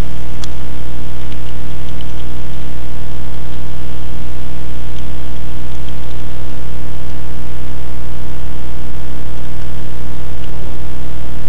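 Loud, steady electrical hum and hiss from the recording chain, with a few faint clicks.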